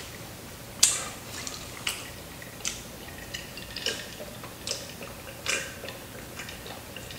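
A person gulping down Kool-Aid from a glass jar, with a short wet swallow roughly every second.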